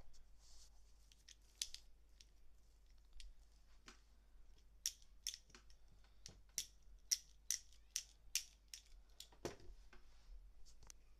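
Plastic toy unicorn pen clicking as its punching mechanism is worked, about a dozen sharp clicks at roughly two a second, with a duller knock near the end.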